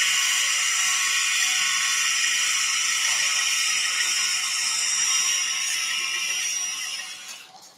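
Handheld surgical wire driver spinning a thin pin to drill a hole in bone: a steady high-pitched whine that winds down and stops near the end.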